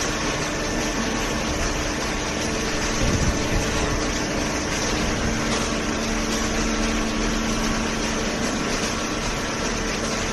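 Automatic hydraulic cardboard baler running: a steady mechanical hum with fixed whining tones from its hydraulic pump and motor. An extra tone comes in for a few seconds midway, and there is a brief low knock about three seconds in.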